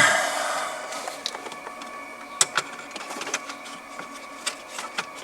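Plastic dashboard trim and an air vent being handled and fitted: a short scraping rush at the start, then scattered light clicks and taps of plastic parts.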